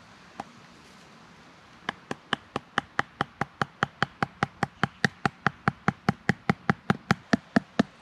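A wooden log used as a mallet knocking a wooden stake into the ground: a single knock, then from about two seconds in a steady, even run of about four or five knocks a second.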